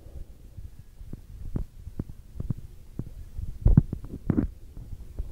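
Low rumble and dull thumps from a hand-held phone being carried at a walk: handling noise and footsteps jolting the microphone about every half second, with a louder cluster of knocks a little before the end.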